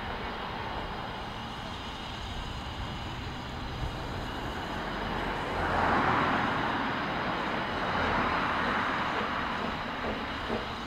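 Double Fairlie narrow-gauge steam locomotive setting off from a standstill: a steady low rumble, then two long surges of steam hiss from the open cylinder drain cocks and the chimney exhaust, the first about five and a half seconds in and the second around eight seconds, with quick exhaust beats starting near the end.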